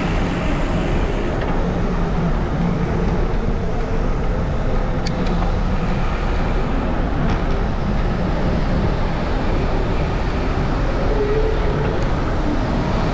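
Steady city road traffic heard from a bicycle riding alongside a queue of cars, with a constant low wind rumble on the microphone.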